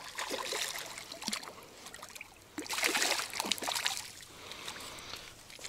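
Water splashing and trickling close by, with scattered small knocks and a louder spell of splashing about three seconds in.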